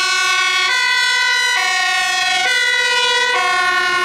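Fire engine siren sounding on an emergency run: held notes that step between high and low pitches about every 0.9 s.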